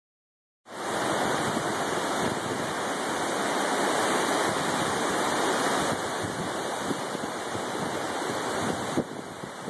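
River in flood, fast water rushing and churning in a steady noise that starts after a brief silence and drops a little near the end.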